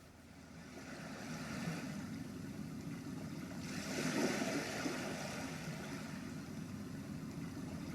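Letsfit TP1 sleep sound machine playing one of its built-in sounds: a steady rumbling noise that fades in over the first second or so and turns brighter and hissier about three and a half seconds in.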